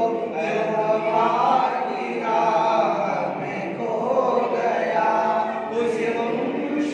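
Several men's voices chanting a devotional salam together, unaccompanied, in long sung lines that rise and fall.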